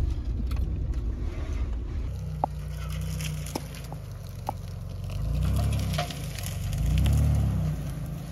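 Pickup truck engine running as the truck drives slowly off-road. Near the end it revs up and back down twice. A few sharp snaps and crunches come from brush under the tyres.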